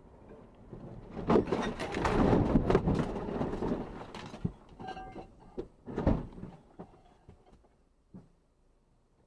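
A car at highway speed ploughs through blown snow. A loud rush of snow blasts against the front and windshield for about three seconds, with several heavy thumps, then dies away over the next few seconds.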